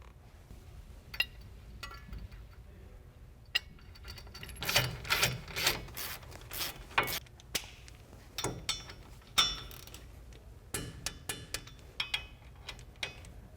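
Hand tools clinking on metal brake parts, with scattered sharp clicks. Two stretches of rapid ratchet-wrench clicking, in the middle and again near the end, come as the caliper bracket's mounting bolts are worked.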